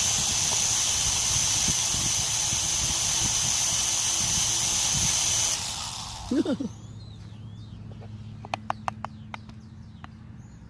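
Small quadcopter drone's motors and propellers spinning with a steady high whine and hiss, which cut off suddenly about five and a half seconds in. After that there is a low steady hum, a few sharp clicks and birds chirping.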